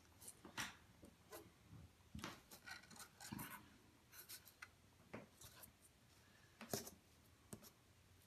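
Faint, irregular handling noise from an inchworm stick puppet: light taps, scrapes and paper rustles as its wooden sticks move over a notebook sheet on a table, with the sharpest tap late on.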